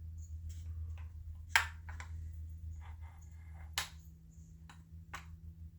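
A few sharp light clicks and taps of metal parts as a Husqvarna 350 chainsaw's crankshaft and connecting rod are handled and checked for play, the loudest about a second and a half in. A steady low hum runs behind them.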